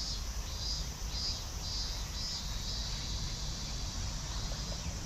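Insects calling in the trees: a high trill that swells and fades about twice a second, over a steady low rumble.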